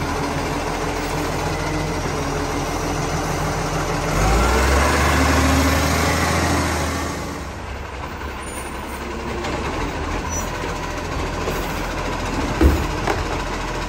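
Iveco side-loader garbage truck's diesel engine running as the truck moves. It revs up about four seconds in, then drops back quieter about halfway through. A single short, sharp sound comes near the end.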